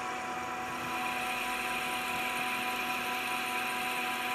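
Metal lathe running while the tool takes a facing cut across the end of a turned metal part. A steady machine whine sits under a hiss from the cutting, and the hiss grows a little louder about a second in.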